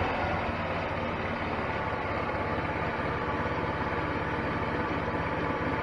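GY6 150cc single-cylinder four-stroke scooter engine dropping back from a throttle blip in the first half second, then idling steadily with even firing pulses. It has just had its valve clearances adjusted and is running smoothly at about 900 rpm.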